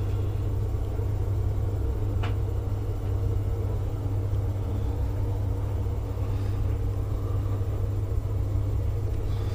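Steady low mechanical hum and rumble from a running machine, with one faint click about two seconds in.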